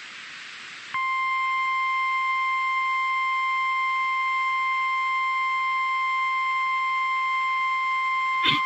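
NOAA Weather Radio 1050 Hz warning alarm tone: one long, steady, unwavering beep that starts about a second in after a moment of static hiss. It signals that a weather warning broadcast is about to follow. A brief click sounds near the end.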